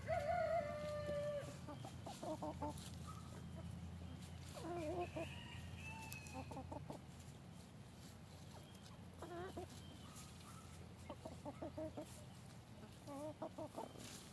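Free-ranging backyard chickens clucking in short bursts every few seconds, opening with one longer held call. A low hum runs underneath for the first half.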